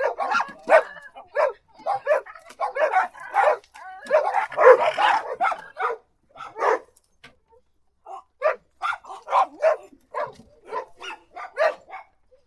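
Dogs barking in quick, repeated barks that crowd together and overlap in the first half. After a pause of about a second, they go on in a run of separate barks, two or three a second.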